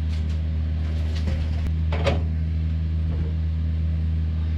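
A steady low machine hum, with a few short noisy sounds about a second and two seconds in as the blanching water is drained off the pork.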